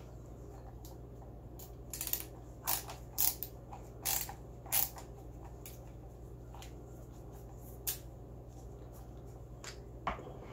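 Screwdriver turning a stiff old screw in the buttplate of a shotgun's wooden stock, giving a run of short creaks and squeaks about two to five seconds in. A single knock near the end as the screwdriver is set down on the bench.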